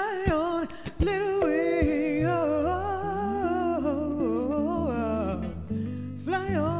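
Background music: a wordless lead melody of bending, wavering notes over a steady low held note.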